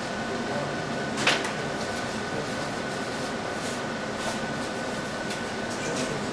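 Steady hum with a thin high whine underneath, and a sharp click about a second in followed by a few lighter clicks and knocks as patch cables and rack hardware are handled.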